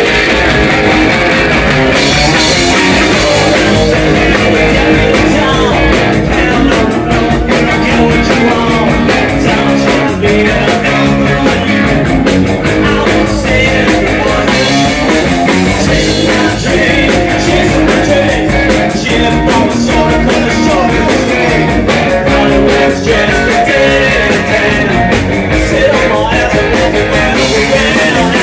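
Live rock band playing loud: electric guitars, bass guitar and drums, with a male singer at the mic. The drums and cymbals fill out about two seconds in.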